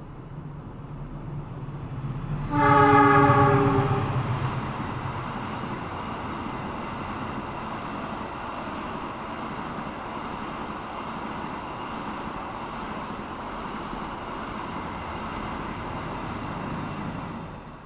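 CC 206 diesel-electric locomotive approaching with a rising engine rumble, then sounding its horn in one blast about two and a half seconds in, the loudest sound. After it, the steady rumble and wheel noise of the train running past close by.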